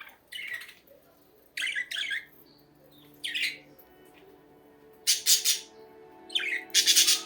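Pet budgerigars squawking in about six short, loud bursts, with background music growing in under them partway through.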